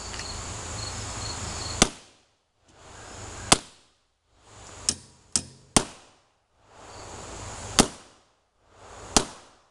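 Scale-model Hotchkiss revolving cannon firing black powder with percussion caps: about seven sharp reports at uneven intervals over several seconds, some much louder than others. The background drops out briefly after each shot.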